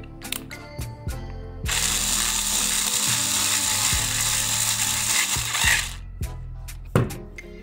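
Electric screwdriver turning a screw in a plastic toy casing: a few clicks, then the motor running steadily for about four seconds before stopping abruptly.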